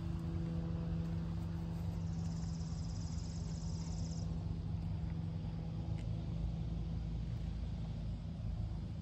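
Yamaha XT500's single-cylinder four-stroke engine idling steadily with an even, low hum.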